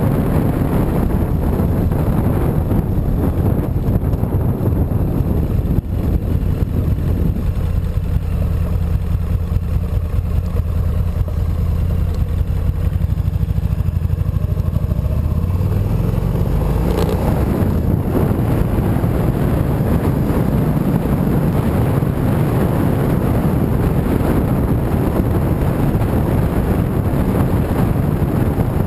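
Motorcycle engine running while riding, mixed with wind rushing over the handlebar-mounted camera's microphone. From about eight seconds in the wind noise drops back and the engine's low steady note stands out, then rises around sixteen seconds as the wind noise returns.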